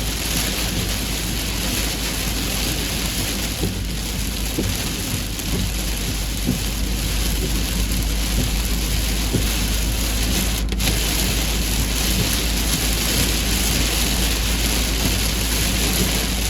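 Heavy tropical rain falling in a steady, dense hiss, with a constant deep rumble beneath it.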